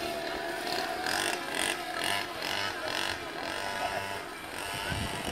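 Small engine of a children's mini motorbike running steadily, fading as the bike rides away.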